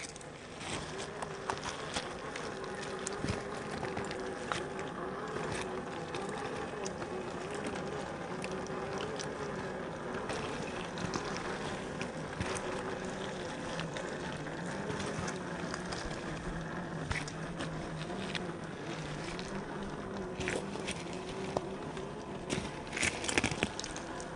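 Traxxas TRX-4 RC crawler's electric motor and gearbox whining steadily at crawling speed, the pitch wavering slightly, with scattered clicks and crunches from the tyres on ice and rock.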